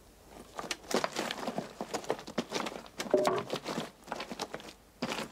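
Loose rock and debris clattering and trickling down in a mine gallery after a collapse, in many small irregular knocks and crackles that start about a second in and die down near the end.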